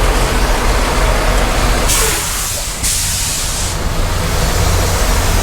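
Semi truck's diesel engine idling steadily, with two short bursts of hissing air from the truck's air brake system about two seconds in.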